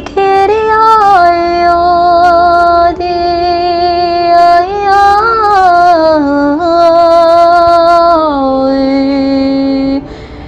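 A woman singing in tongues in long held notes without clear words, the pitch gliding up and down between them, before breaking off near the end.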